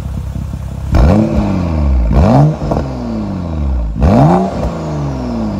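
BMW 535i revved three times through an ABC bypass exhaust with its cutout valves open. Each throttle blip climbs quickly and then falls back to idle, about one, two and four seconds in.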